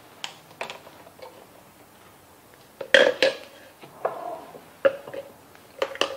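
Homemade vinegar and baking-soda cleaner being poured from a mixing container into a spray bottle: a few clinks and knocks of the containers, the loudest about three seconds in, with short glugs of the liquid.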